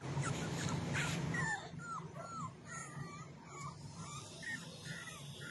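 Beagle puppies whimpering and whining, many short high whines rising and falling in pitch.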